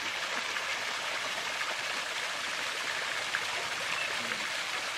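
Steady, even rush of running water, such as a fountain or an inflow splashing into a duck pond.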